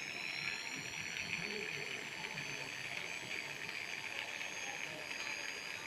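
Variable-speed electric drill spinning a 12-volt dynamo through a coupling: a motor whine that settles to a steady pitch about a second in, with a hiss of rushing air beneath it.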